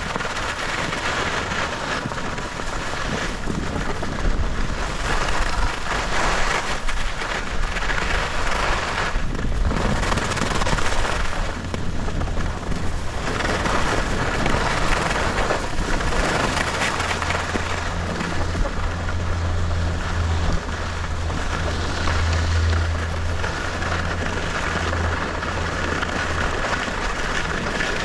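Steady rushing noise of skiing downhill: skis hissing and scraping over snow, with wind rushing on the microphone, swelling and easing every couple of seconds, plus a low rumble that grows stronger in the second half.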